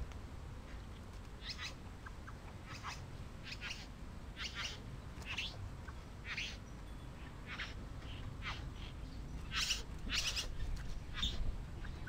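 Male satin bowerbird giving a run of short buzzy courtship calls, roughly one a second, with the two loudest near the end.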